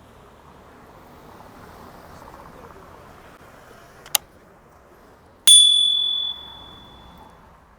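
A sharp click, then a single bright metallic ding, like a small bell, that rings on for a second or two over faint background murmur.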